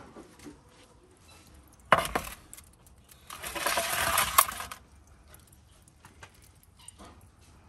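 A sharp metal clank about two seconds in, then a metal baking tray scraping across the stone floor of a brick wood-fired oven for about a second and a half as it is pushed in by hand, ending with a click.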